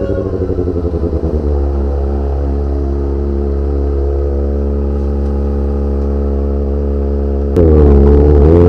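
Kawasaki ZX-25R's 250cc inline-four engine through a Magna aftermarket exhaust: the revs fall away and settle into a steady low run, then about seven and a half seconds in the throttle opens and it gets suddenly louder, the pitch dipping briefly before climbing as it accelerates.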